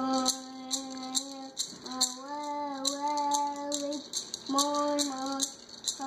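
A young boy singing a bird song in long held notes, in phrases with short breaths between them, while shaking a handheld rattle in a steady beat about twice a second.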